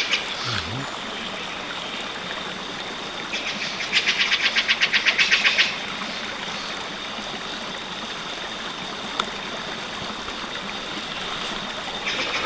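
River water flowing steadily, with a rapid high rattle of about six or seven ticks a second breaking in twice, the longer run about two seconds.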